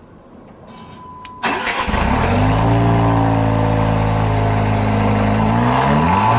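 Jaguar F-Type V6 S's supercharged 3.0-litre V6 starting about a second and a half in with a loud flare of revs, then settling to a steady idle, with the revs rising again near the end.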